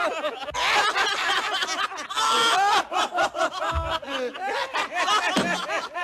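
Several cartoon dwarfs laughing and chuckling together, their voices overlapping. A brief rushing noise sounds about two seconds in, and a short low thud a little before the four-second mark.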